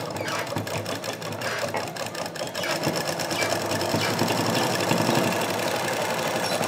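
Black domestic sewing machine running steadily, its needle rapidly ticking as it stitches lace trim onto fabric, growing a little louder over the first few seconds.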